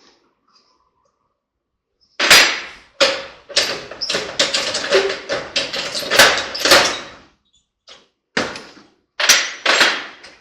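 Metal hammer blows on a drive shaft yoke, knocking out worn U-joints and their snap rings. A fast run of ringing strikes starts about two seconds in and lasts about five seconds, then four more spaced blows come near the end.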